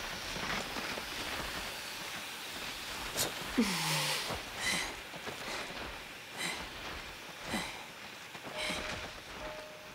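Heavy, ragged breathing of exhausted soldiers: a string of short breaths and one falling groan about three and a half seconds in, over a steady hiss of steam rising from the titan bodies that slowly fades. A faint repeated tone comes in near the end.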